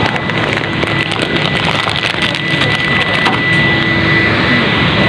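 A steady mechanical hum and hiss with a thin high-pitched whine running through it, and scattered light clicks.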